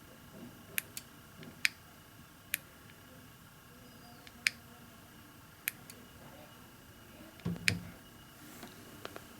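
Handling noise from radio equipment on a bench: about eight scattered sharp clicks, with a duller knock and rustle about two thirds of the way in.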